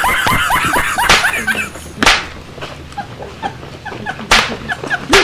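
A dog yelping and whimpering in short rapid cries, several a second, broken by four sharp hits.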